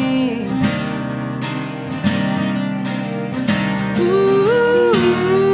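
Acoustic country music: two acoustic guitars strumming in a steady rhythm while a fiddle plays long held notes, one sliding up and held about four seconds in.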